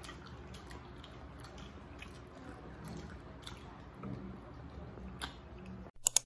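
Quiet chewing and biting sounds of people eating skewered barbecue, with scattered small clicks. Near the end it drops out, and two short, loud clicks follow.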